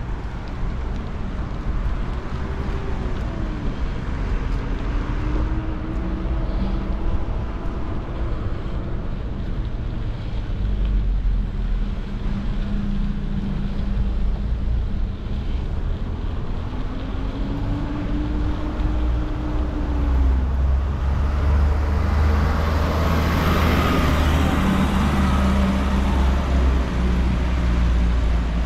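Road traffic passing on a city street: a steady rumble with engine tones that rise and fall as cars go by, and a louder rushing pass near the end.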